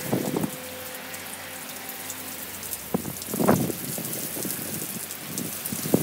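Steady rain falling, a continuous hiss of drops with a few louder, closer splashes about halfway through.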